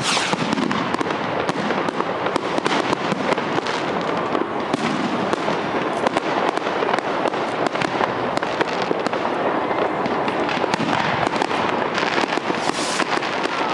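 Fireworks bursting: a dense, continuous stream of sharp cracks and bangs.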